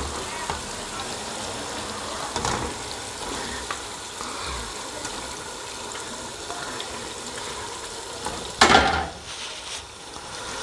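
Raw chicken pieces sizzling as they go into hot oil and fried masala in an aluminium pot, a steady frying hiss with a few small knocks. A louder scrape of the wooden spoon in the pot about eight and a half seconds in.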